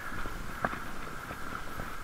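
Bicycle riding noise: a steady hum of the moving bike with irregular clicks and rattles, several in two seconds.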